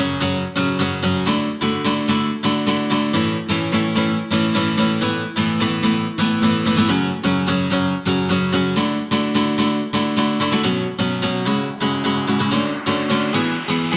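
Background music led by a strummed guitar with a steady beat, no vocals.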